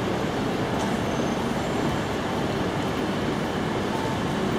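Steady city traffic noise: a low rumble of vehicles and general street bustle, with no distinct events.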